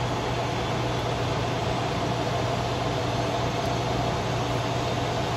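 Mingda Magician X2 3D printer running a filament unload: a steady hum from its fans and the extruder motor as it draws the heated filament back out of the hotend.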